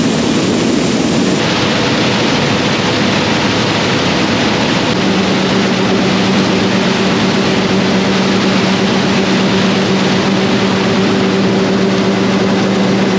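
A heavy engine running steadily with a loud rushing noise; about five seconds in, a steady low hum joins it.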